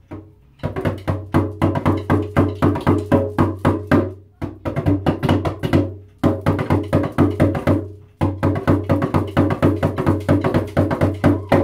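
Hand-held shamanic frame drum with a white skin head, beaten rapidly and evenly with the hands at about six strokes a second. It plays in four runs, with brief breaks between them.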